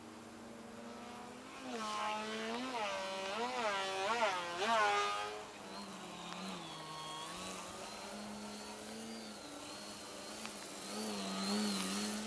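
Future Model Edge 540T RC aerobatic plane flying overhead, its motor and propeller giving a buzzing tone. The pitch wavers up and down about four times during a louder stretch early on, then goes quieter and steadier, and wavers again near the end as the plane comes by low.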